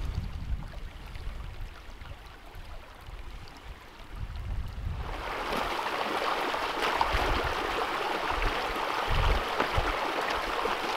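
Small clear creek running over rocks, a steady rush of water that grows louder about five seconds in.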